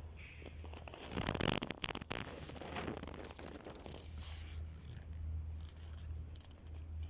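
Scratchy rustling and scraping close to the microphone, loudest between one and two seconds in, over a steady low hum.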